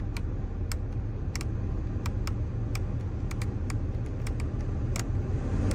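Inside a 2009 Volvo XC90's cabin, a steady low hum runs under about a dozen short, sharp clicks from the climate-control area of the dash. The clicks come at uneven spacing, sometimes two or three close together.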